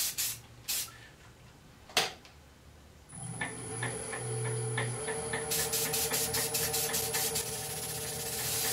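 Short hisses from an aerosol can of silver spray paint, then a wood lathe starts about three seconds in and runs steadily with a low hum. From about halfway a high hiss with quick regular ticks runs over the lathe, as the paint is sprayed onto the turning oak blank.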